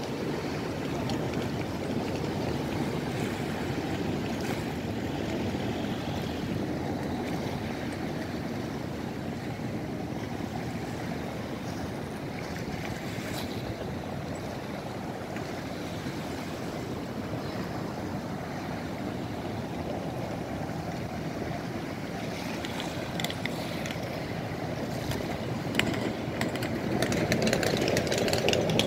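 Steady rush of river water washing against a stone quay wall, with a few light clicks and a slight rise in level near the end.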